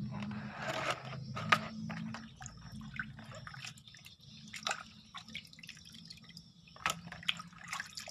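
Water splashing and dripping in a plastic basin as raw fish are rubbed clean and lifted out by hand, in irregular small splashes, the sharpest about one and a half seconds in. A low steady hum runs underneath.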